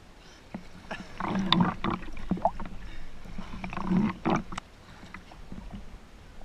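A person climbing a hanging rope: a cluster of knocks, creaks and rubbing, with one short rising squeak partway through.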